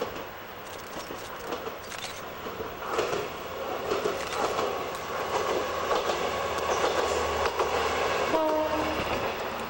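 Shimabara Railway KiHa 22 diesel railcar running past, its engine and wheels on the rails growing louder from about three seconds in. A short horn blast sounds near the end.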